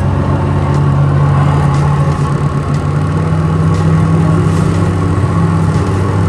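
Jet ski engine running steadily at a constant speed.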